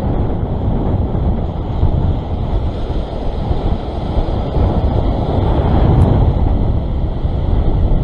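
Heavy surf breaking and washing over a rock ledge, mixed with wind buffeting the microphone.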